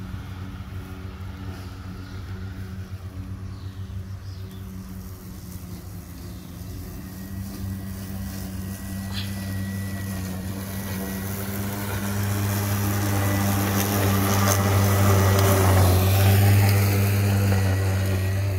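EGO Power+ Select Cut 56-volt brushless cordless electric lawn mower running under load as it cuts tall grass: a steady electric hum with blade whir, growing louder through the second half as the mower comes closer, loudest shortly before the end.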